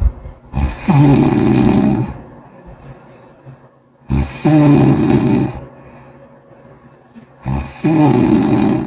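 A sleeping person snoring loudly: three long, rattling snores, each about a second and a half, spaced a few seconds apart with quieter breathing between them.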